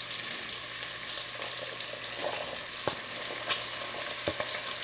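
Chopped bacon sizzling in its rendered fat in a cast iron Dutch oven as diced onion and jalapeños are scraped in with a wooden spoon, with a few light knocks.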